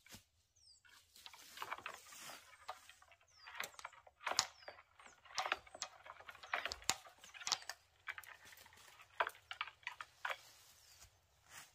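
Faint, irregular rustling and crackling, a quick scatter of small dry clicks.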